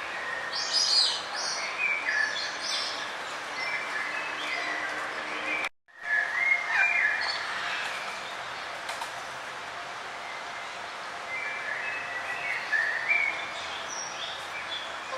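Forest birds chirping and calling in short, high phrases over a steady background hiss. The sound cuts out completely for a split second about six seconds in.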